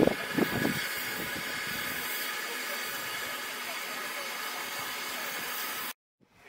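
Steady steam hiss from the George England 0-4-0 saddle-tank locomotive Welsh Pony standing in steam, with a few low rumbles in the first second. The hiss cuts off suddenly near the end.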